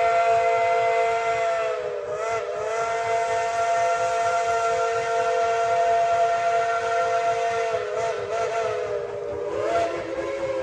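Steam locomotive chime whistle blowing one long blast, a chord of several notes held steady, sagging and wavering in pitch briefly about two seconds in and again near the end as the valve is worked.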